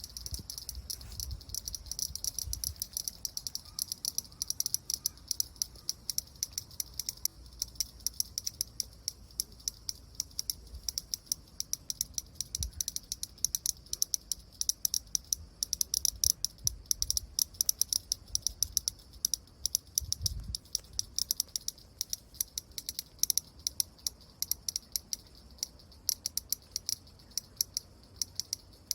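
Cicada making rapid, irregular high-pitched clicks that thicken into near-continuous rattling at times and thin out at others.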